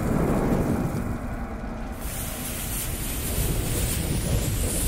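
Logo-intro sound effect of a burning fuse: a hissing sizzle over a low rumble, the hiss turning brighter and fuller about two seconds in.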